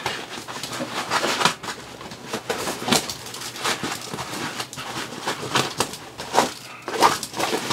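Nylon backpack fabric and webbing rustling and scraping as a pouch is worked loose and pulled off the pack's MOLLE straps, in short, irregular bursts.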